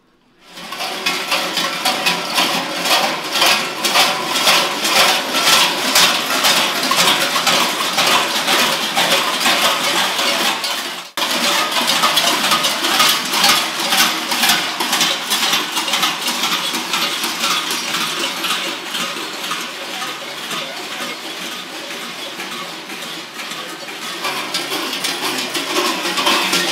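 Many large cowbells worn by running Klaubauf (Krampus) figures, clanging loudly and continuously as the troop runs. The clanging starts suddenly just after the beginning and breaks off for an instant about eleven seconds in.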